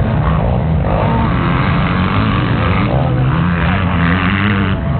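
Motocross motorcycle engines running, their pitch rising and falling as they rev.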